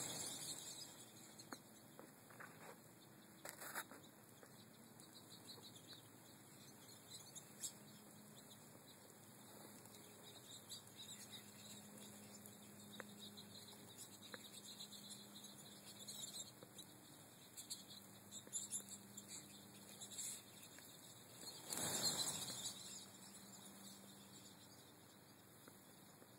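A flock of American goldfinches whirring their wings as they flush from the feeders, once at the start and again a few seconds before the end, with faint high twitters and small clicks in between.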